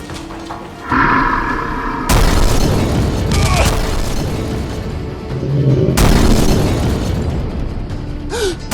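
Explosion sound effects laid over background music: a loud boom about two seconds in and a second one about six seconds in, each rumbling on for several seconds.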